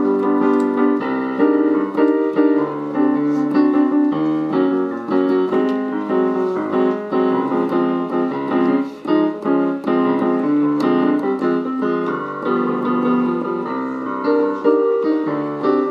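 Electric keyboard played in a run of chords and melody notes, many of the notes ringing on and overlapping.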